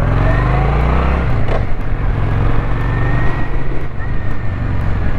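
2005 Kawasaki Vulcan 800's V-twin engine running under way. Its pitch rises over the first second or so as the bike pulls away, then holds steady, under wind and road noise.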